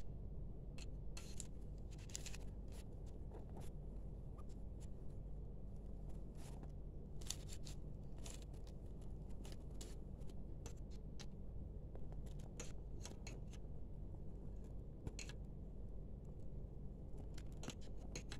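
Small cloth hand flags on thin plastic sticks being handled and separated, giving scattered short rustles and clicks over a steady low background hum.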